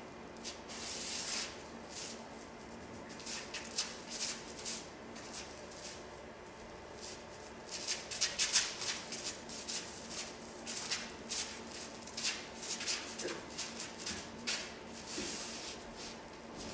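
Bare feet shuffling, scuffing and tapping on a stage floor: irregular clusters of short swishes and taps, with longer sliding swishes about a second in and again near the end.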